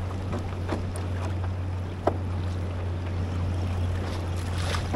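Wind buffeting the microphone and choppy sea slapping against a fishing kayak, over a steady low hum. There is a sharp knock about two seconds in and another near the end.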